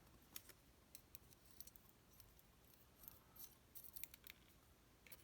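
Faint, scattered light metallic clicks and ticks of tiny lock springs and a metal tool being handled while a pin-tumbler lock cylinder is taken apart, as the last pin springs are removed.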